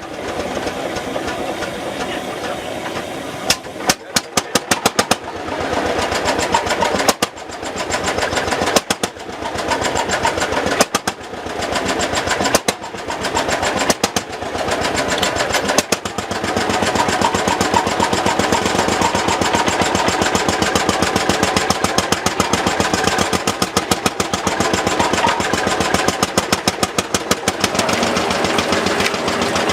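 Lanz Bulldog tractor's single-cylinder hot-bulb two-stroke engine running with a fast, regular knocking beat. It is uneven with several brief dips in the first half, then runs steadily from about halfway through.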